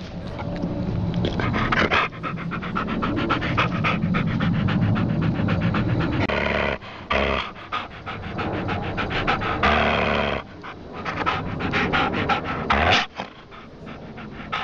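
Dog panting fast, in quick repeated breaths, with louder, longer stretches about six and ten seconds in.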